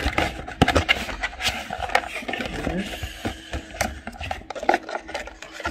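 Paper instruction booklet being handled and shuffled on a cutting mat: dense rustling with many sharp taps and clicks.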